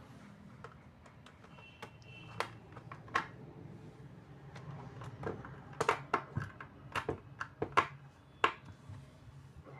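Irregular small clicks and taps of metal and plastic parts being handled while a flood light's housing is reassembled, sparse at first and coming thicker and louder in the second half.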